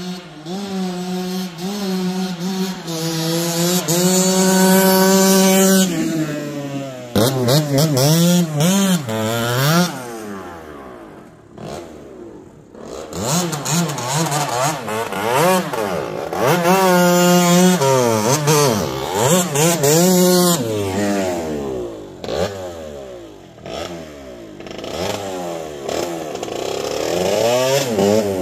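1989 Kawasaki KX80 two-stroke dirt bike engine revving hard and shifting through the gears: the pitch climbs and then drops with each shift, again and again. The sound swells and fades as the bike rides toward and away from the camera, faintest around the middle.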